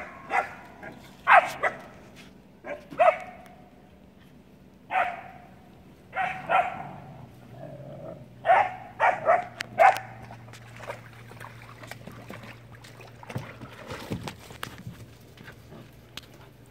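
Puppies barking in short, sharp barks, about a dozen in the first ten seconds, several in quick succession around the middle, then only faint scattered barks.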